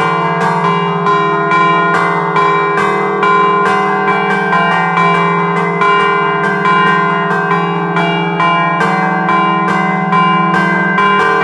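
Three-bell set of bronze church bells cast by De Poli in 1947, chimed by hand: their clappers are pulled on chains against the stationary bells in a fast, unbroken rhythm of several strokes a second, the tones ringing on and overlapping.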